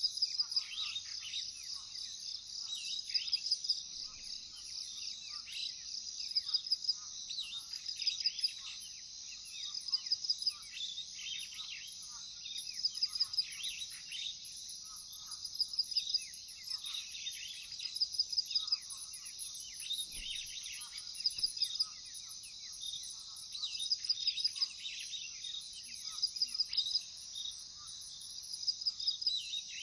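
Crickets chirping in short pulsed bursts about every second and a half, over a chorus of many birds calling and a fainter high insect buzz.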